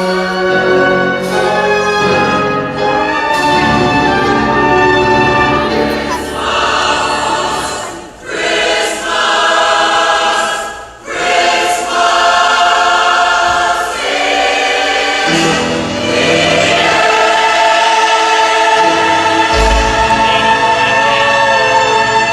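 A choir singing in long held phrases over instrumental accompaniment, with brief breaks about eight and eleven seconds in.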